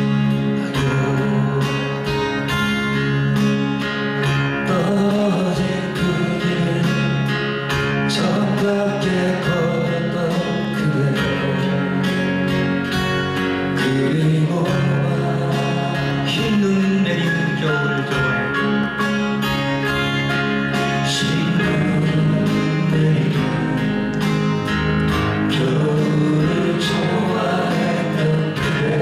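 Live song performance: two acoustic guitars strummed steadily under a male voice singing into a microphone.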